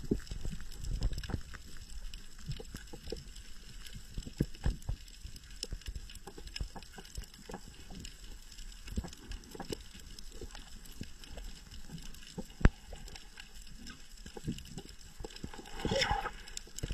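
Underwater reef ambience: scattered clicks and crackles, with one sharp click about three-quarters through and a brief louder rush of noise near the end as the diver pushes up off the bottom.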